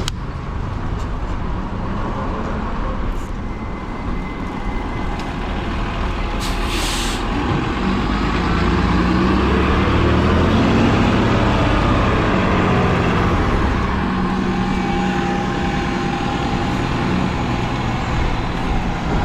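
Road traffic with a heavy vehicle's engine passing close, loudest about ten seconds in, and a short hiss of air about six and a half seconds in.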